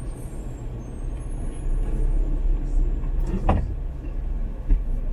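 Car driving on city streets: steady low engine and road rumble, with one short sharp knock about three and a half seconds in and a smaller one near the end.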